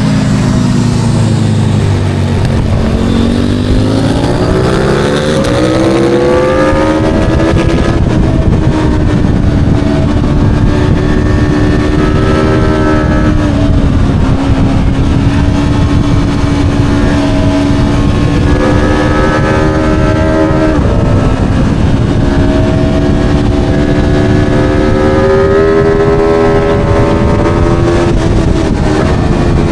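Aprilia Tuono V4 motorcycle's V4 engine at full track pace. The note starts low, climbs steeply over several seconds as the bike accelerates, then holds high. Brief dips and fresh climbs come as the rider works the throttle and gears, and it falls away near the end.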